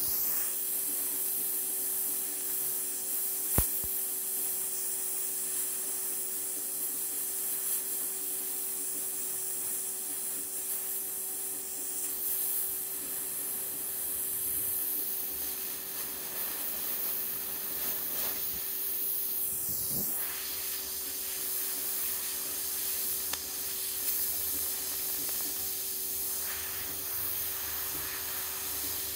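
HHO (oxyhydrogen) torch flame hissing steadily as it heats an aluminium rivet, with a steady low hum underneath. A single sharp click comes about three and a half seconds in.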